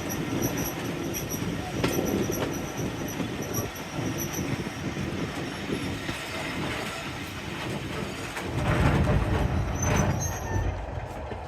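Diesel-hauled passenger train, with Class 45 locomotive 45108, running on the line: steady wheel-and-rail noise with high-pitched wheel squeal in the first half, and a louder low rumble about nine seconds in before the sound eases off.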